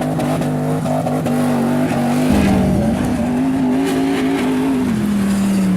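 Ford Raptor pickup truck's engine running hard off road, its pitch rising and falling with the throttle and dropping back near the end.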